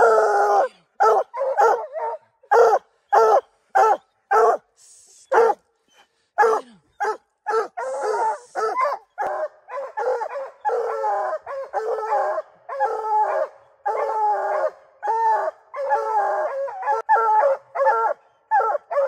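Two hounds barking treed at the base of a tree with a black bear up it, the tree bark that tells the hunter the bear is treed. Separate barks about two a second at first, then after a short break around six seconds in they come faster and overlap as both dogs bark together.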